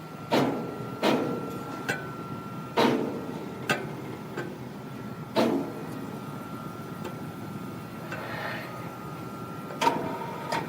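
Sharp wooden knocks at uneven intervals, several in the first five seconds and two more near the end, over a steady high-pitched machine hum, with a brief scraping swell late on.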